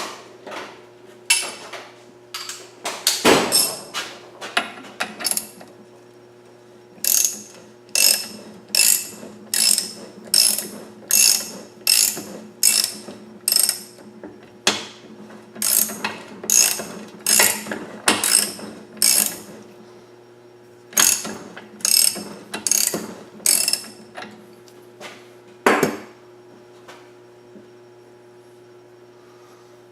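Ratchet wrench worked in repeated strokes, a sharp ratcheting click with each swing at about one and a half to two a second. The strokes come in runs with short pauses between them.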